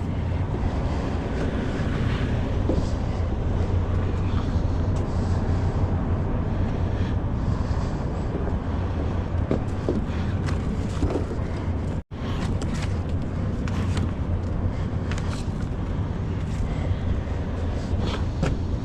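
Steady low hum of an idling truck engine under outdoor background noise; the sound cuts out for an instant about twelve seconds in.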